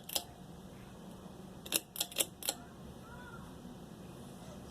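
Casablanca Four Seasons II ceiling fan's motor running with a faint low hum, while its speed control clicks sharply once near the start and four times in quick succession about two seconds in. The fan is not reaching medium speed, which the owner suspects is a worsening capacitor.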